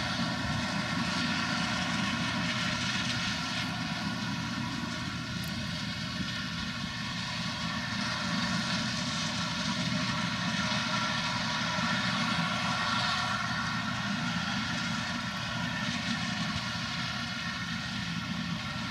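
Heavy farm machinery running with a steady, unbroken engine drone and no changes in pace.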